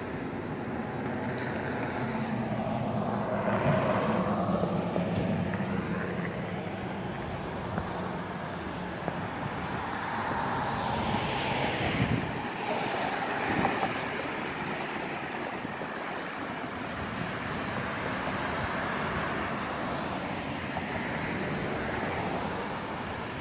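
Street traffic: cars passing by, with tyre and engine noise that swells and fades, loudest about four seconds in and again around eleven seconds. A couple of short knocks come midway.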